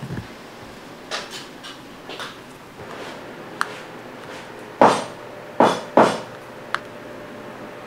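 Hand tools and a steel ruler handled on a wooden workbench, making scattered clicks and knocks. The three loudest knocks come close together past the middle.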